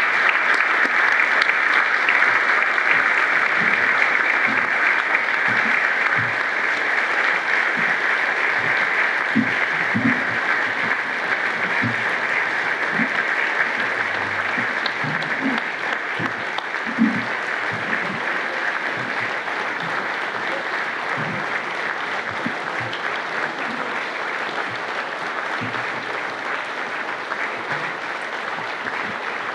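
Large audience applauding steadily, the clapping slowly growing a little quieter.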